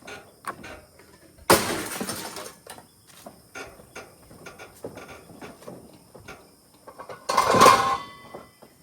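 Scrap metal pieces thrown down onto a pile: two crashes about six seconds apart, the second ringing on briefly, with light clanks of handled metal between them.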